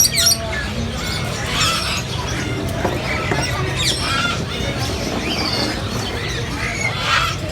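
Many parrots squawking and chirping at once, short sharp calls overlapping throughout, over a steady low rumble.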